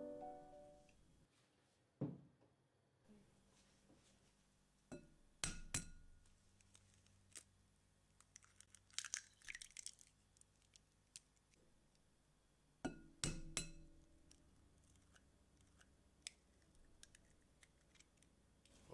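Eggs cracked against a glass mixing bowl and opened into it: sharp taps on the glass in a few spaced pairs, with a brief crackle of shell being pulled apart and small ticks between.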